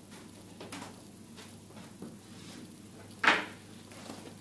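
Clothes being handled on a pile: faint fabric rustles, with one short, sharp rustle about three seconds in.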